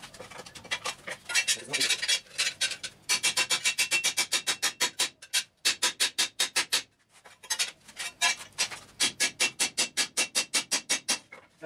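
A hand tool working a steel plate clamped in a bench vise: fast, even strokes, about five a second, in runs broken by two short pauses near the middle.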